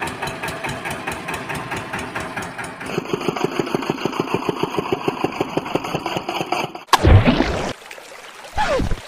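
Tractor engine running with an even chugging beat, about six or seven pulses a second, louder from about three seconds in. About seven seconds in it breaks off into a loud splash of the toy tractor dropping into a tub of water.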